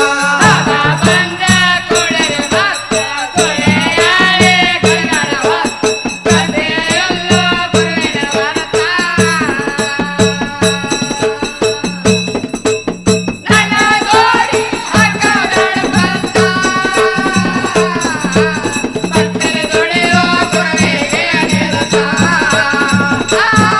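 Dollina pada folk devotional song: a singer's ornamented, wavering melody over a steady drum beat and shaken rattle-like percussion.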